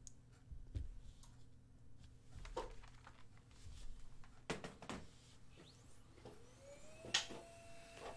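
Printer running, faint, printing a page: a few sharp clicks and knocks over a low hum, then a motor whine that rises and holds steady near the end.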